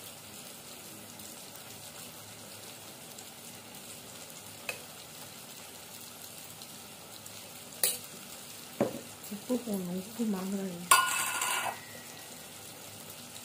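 Faint steady background hiss with two sharp taps of a steel spoon on a stainless steel bowl as chilli powder is added to turmeric. About nine seconds in comes a short wavering sound, then a brief loud rasp.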